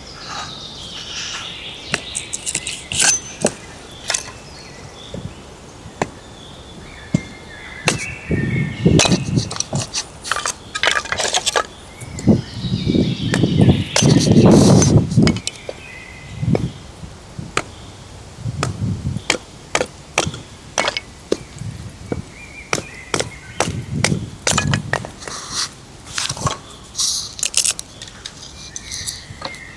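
Irregular sharp knocks and clicks of objects being handled or struck, with several heavier thuds, over faint bird chirping.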